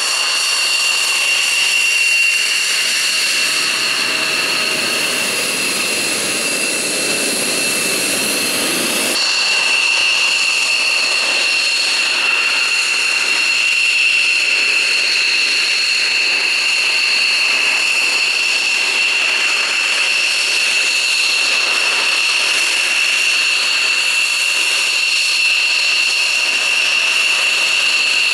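F-16 fighter's jet engine running on the ground: a loud, steady high-pitched whine over a rushing roar. The tone shifts slightly about nine seconds in.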